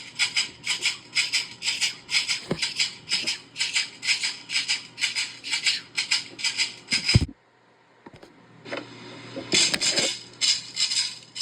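Homemade shaker shaken in a steady rhythm, about three strokes a second. It stops with a single knock about seven seconds in, then starts again faintly and builds back to full strength.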